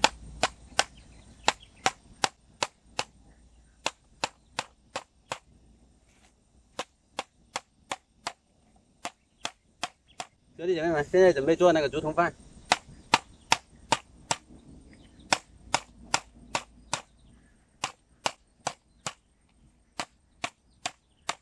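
Large knife chopping into the base of a fresh green bamboo stem: sharp, cracking knocks about two a second with short pauses. A man's voice is heard briefly a little past halfway.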